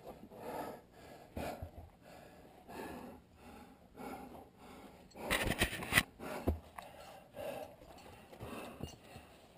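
A climber breathing hard, in short heavy pants about once a second. About halfway through comes a louder scuffing scrape lasting nearly a second.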